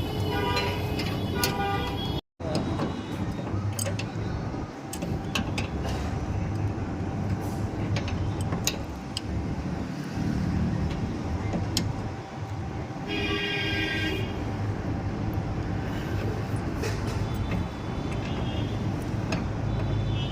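Street traffic running with a steady low hum, a vehicle horn sounding briefly about thirteen seconds in, and scattered sharp clicks and knocks throughout.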